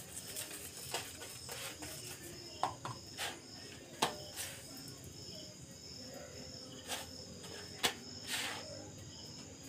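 Crickets chirping in a faint, steady, high-pitched pulsing trill, with scattered light clicks and knocks of cooking utensils.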